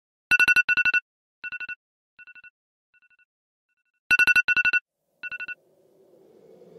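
Phone alarm tone: clusters of four quick electronic beeps. Two loud clusters are followed by fainter and fainter repeats, then the pattern starts over. Soft music fades in near the end.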